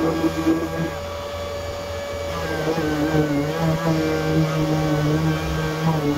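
Random orbital sander working filler on a plastic car bumper, with the Kärcher wet-and-dry vacuum running on its dust-extraction hose. The motors give a steady whine that wavers slightly in pitch as the sander is pressed and moved over the surface.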